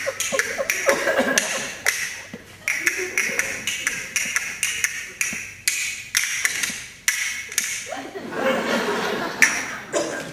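A run of sharp wooden taps and knocks, several a second and unevenly spaced, like wood-block percussion or a stick striking boards. Short bits of vocal sound come in during the first two seconds and again about eight seconds in.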